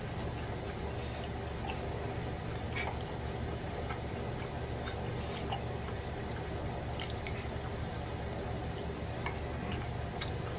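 Close-up sounds of a person eating a pork chop by hand: chewing and lip and finger smacks, heard as scattered short clicks with a sharper one near the end, over a steady low background hum.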